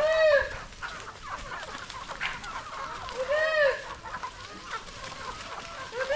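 Native free-range chickens calling: three drawn-out calls that rise and fall in pitch, about three seconds apart, with fainter clucking between.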